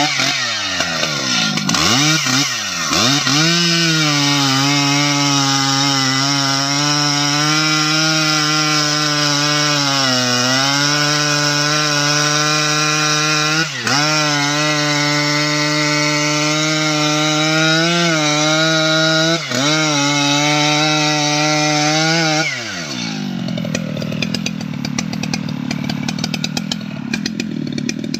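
STIHL MS 881 two-stroke chainsaw revving up and down a couple of times, then running at full throttle as it cuts into the base of a large teak trunk, with two brief dips in engine speed. About 22 seconds in, the engine drops away.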